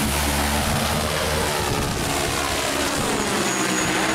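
Multirotor crop-spraying drone taking off and climbing, its propellers running at full power with a loud, steady whir, and the downwash blowing across the ground. The rotor pitch shifts in the second half as it climbs away.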